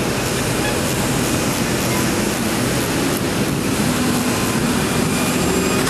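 Steady, loud rumble of heavy vehicles running, with no break.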